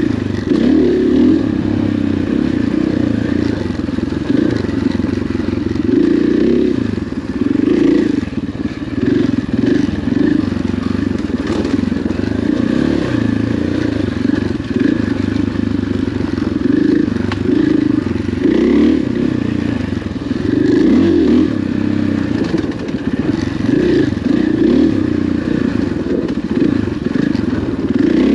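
Dirt bike engine running under way on a trail, its revs rising and falling again and again with the throttle.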